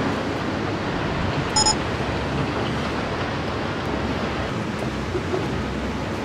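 Steady outdoor wind noise on the microphone, an even rushing hiss, with one brief high tone about one and a half seconds in.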